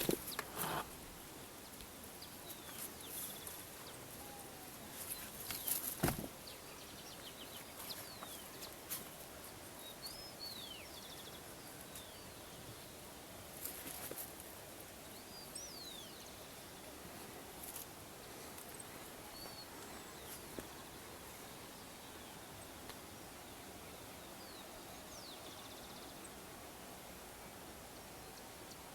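Small birds giving short, scattered chirps over a steady faint outdoor hiss, with two sharp knocks, one just after the start and one about six seconds in.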